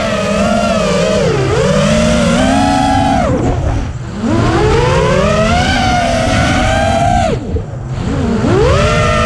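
Hobbywing 2405 2250kv brushless motors on a 6-inch FPV quadcopter spinning HQ 6030 three-blade props, a layered whine that rises and falls with throttle over a low wind rush. Twice, about three and a half seconds in and again near the eight-second mark, the pitch drops sharply as throttle is chopped, then climbs back as power comes in.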